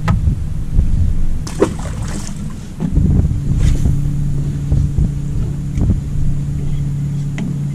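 Wind buffeting the microphone on an open boat, with a few sharp knocks on deck. From about three seconds in, a steady low motor drone sets in, a boat engine running.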